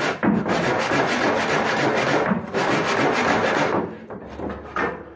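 Hand saw cutting across a wooden board: rapid back-and-forth strokes of the teeth rasping through the wood, which ease off and go quieter about four seconds in.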